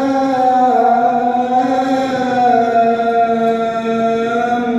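A teenage boy's voice reciting the Quran in melodic chant, holding one long drawn-out note that steps down slightly in pitch about halfway through.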